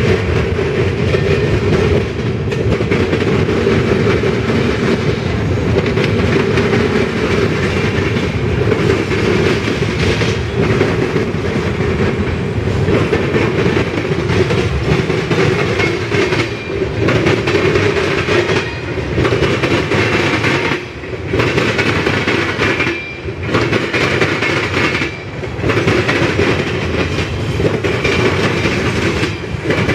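Freight train's covered hoppers, boxcars and tank cars rolling past close by, steel wheels clacking over the rail joints in a continuous run. The noise dips briefly a few times near the end.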